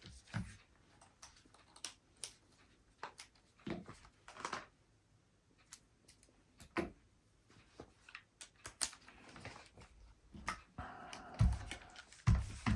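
Irregular light clicks and taps of small parts and tools being handled while a 1/18 scale RC rock crawler is taken apart, with two heavier knocks near the end.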